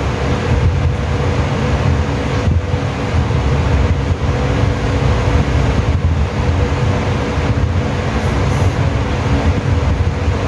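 Steady low rumbling hum of background machinery, with a faint steady tone running through it.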